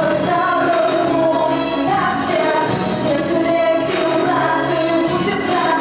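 A song: singing over loud backing music, running steadily throughout.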